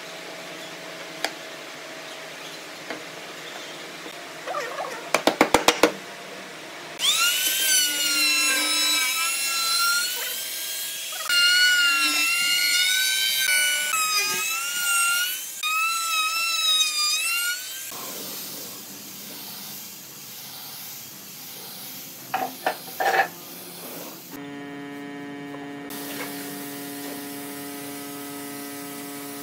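Electric woodworking power tools running: a loud whine that wavers in pitch as the tool is loaded, then a steady motor hum near the end, with a quick rattle of clicks before the whine.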